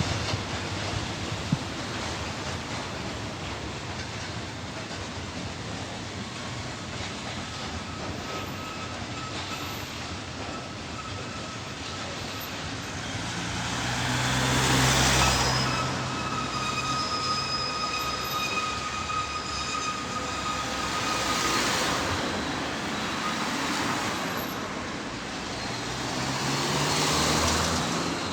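A train running through a station: a continuous rail rumble that swells in loudness three times, with thin, steady high whining tones in the middle part.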